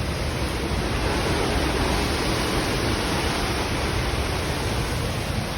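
Hurricane wind and heavy rain: a steady, even rush of noise.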